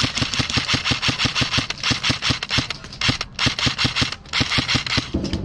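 Airsoft electric gun firing long full-auto strings: a fast, even mechanical clatter of shots, broken by short pauses about three and four seconds in.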